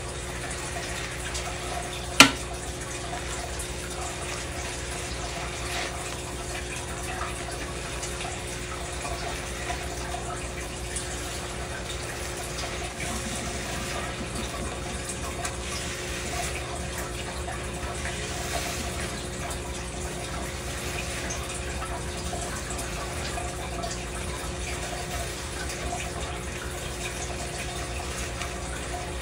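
Tap water running steadily into a stainless steel sink, with one sharp click about two seconds in.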